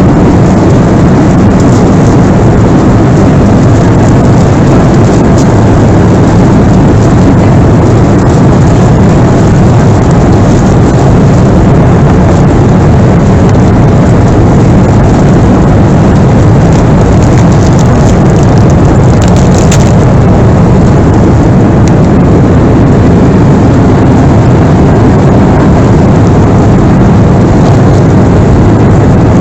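Steady, loud roar inside the cabin of a Boeing 737-300: the CFM56-3 jet engines and rushing airflow make an even, low-heavy rumble with no change in pitch.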